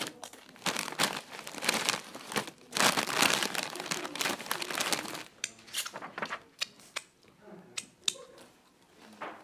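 A crisp packet crinkling and rustling as a hand rummages inside it, loudest about three seconds in, then a scattering of short, sharp crackles.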